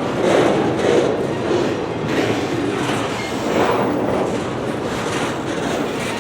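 Loaded CSX freight train's intermodal spine cars rolling past, steel wheels on rail giving a continuous noise that swells again and again as each set of wheels goes by.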